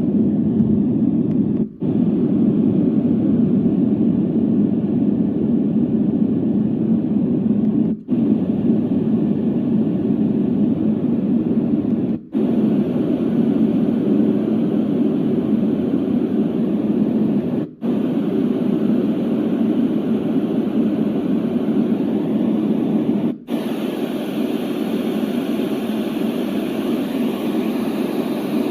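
Douni white noise sound machine playing a steady, deep noise. It breaks off briefly five times, and the noise shifts a little in character after some of the breaks.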